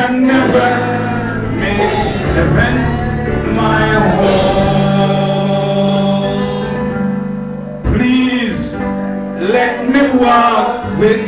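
Gospel praise team singing a slow worship song into microphones, voices holding long notes over a sustained instrumental accompaniment.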